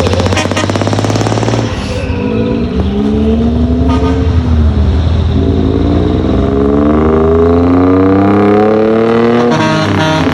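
Decorated truck's diesel engine and exhaust pulling away under load, its pitch climbing and then dropping at a gear change, twice.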